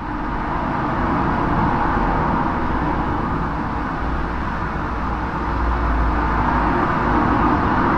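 Steel bridge structure vibrating under passing traffic, picked up through a contact microphone on the metal: a steady, dense rumble with a ringing hum. It swells a little about two seconds in and again near the end.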